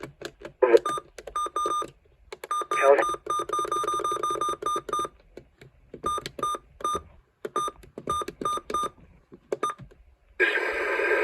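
A rapid, uneven series of short electronic beeps, all near one pitch, with a few gaps and a couple of brief clipped fragments of other sound in between.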